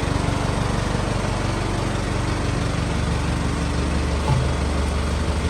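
A vehicle engine idling steadily; about three seconds in, its low drone settles to a deeper pitch.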